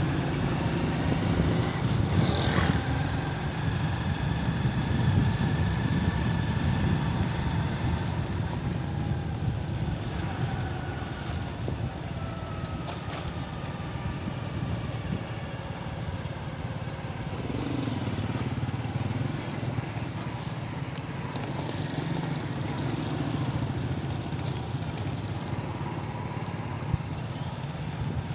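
Small motorcycle engine running steadily while riding, with road and wind noise.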